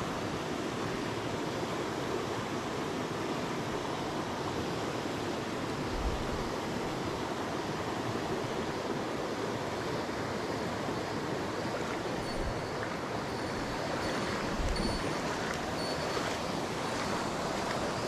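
Shallow mountain stream flowing over stones in a riffle: a steady, even rush of water.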